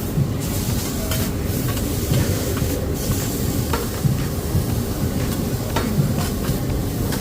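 Food sizzling on a teppanyaki griddle, a steady frying hiss, with a few short sharp clinks.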